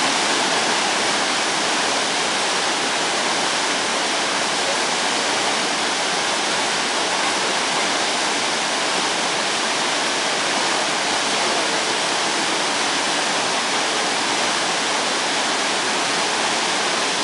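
River whitewater rapids rushing over and around boulders: a steady, unbroken rush of water.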